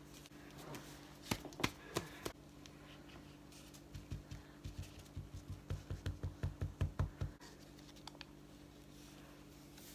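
Plastic bottle of white school glue squeezed over and over onto paper on a table: a run of about a dozen soft squelches and thumps, about three a second and growing louder, after a few sharp clicks of handling. A steady faint low hum runs underneath.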